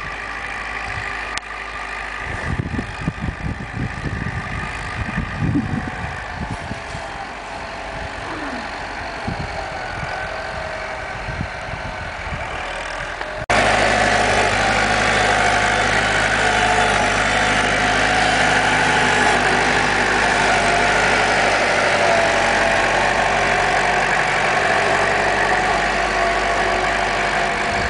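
Farm tractor engine running steadily as it ploughs snow, with low buffeting noise in the first part. About halfway through the sound jumps abruptly to a louder, closer engine note that holds steady to the end.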